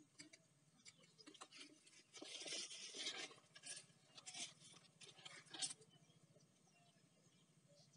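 Faint handling noises: a plastic bag crinkling for about a second, starting about two seconds in, then a few light clicks as the chainsaw bar and chain are handled on the angle grinder attachment.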